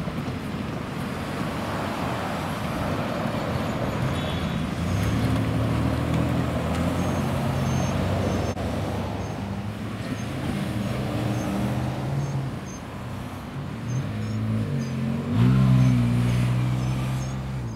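Road traffic at a railroad grade crossing: cars and an SUV driving past with tyre noise and engine hum. The loudest moment is a car passing close, with a sweeping engine note, about fifteen seconds in.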